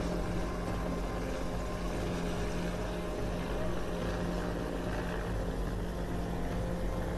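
A steady engine drone with a constant low hum, holding even throughout.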